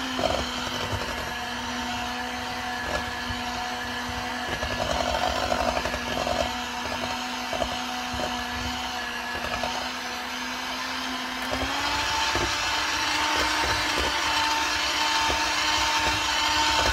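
Electric mixer whipping mashed potatoes in a pot: a steady motor whine with scattered knocks of the beaters against the pot. The pitch steps up about twelve seconds in as the mixer is switched to a faster speed.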